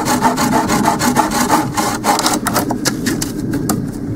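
Hand saw cutting a thin stick with quick, even back-and-forth strokes. The strokes break off about halfway through, leaving a few scattered light clicks and knocks of wood.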